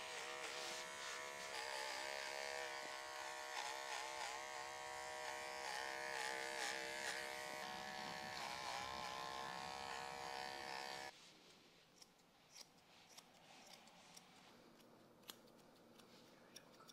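Cordless ARCO pet clipper running with a steady electric hum as it trims the fur between a dog's paw pads, its pitch wavering slightly as the blade works through the hair. It switches off abruptly about eleven seconds in, leaving only a few faint clicks.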